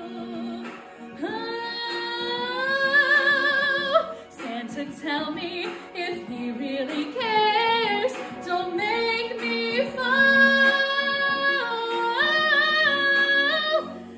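A woman singing wordless vocal runs and long held notes with vibrato, climbing into high notes, over backing music.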